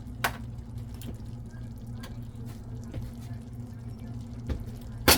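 Kitchen cooking sounds: a steady low hum under a few sharp taps and clicks of utensils on cookware, the loudest just before the end.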